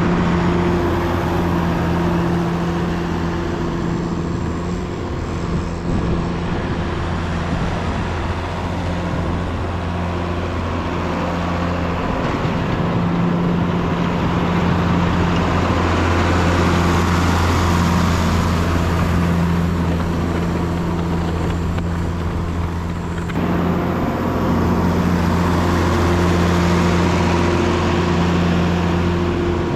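Engine of a snow-clearing vehicle running steadily while it works, its sound swelling and easing a little as the load changes.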